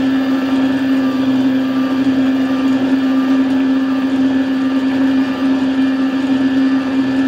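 Vertical slow juicer's electric motor running with a steady low hum as it presses fruit.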